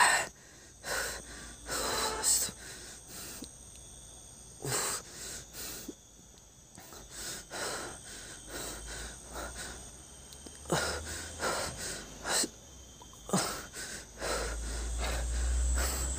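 A man breathing heavily in irregular rasping, wheezing breaths and gasps, a dozen or more, over the steady chirring of night insects.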